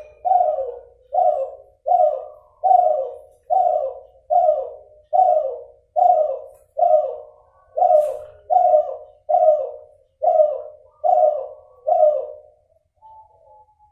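A crossbred Kelantan derkuku (spotted dove) cooing: a steady series of about sixteen short coos, a little under a second apart, pausing briefly near the end. The breeder calls this cross's voice still nasal, with an inconsistent number of end notes.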